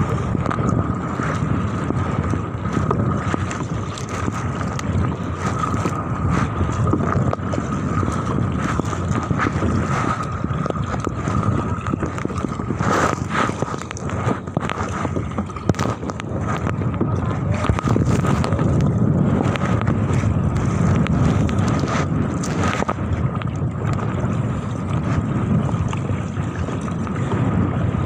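Strong wind buffeting the microphone on a paddled inflatable kayak in choppy water, with a few short splashes from the paddle and waves. A thin steady high tone runs underneath.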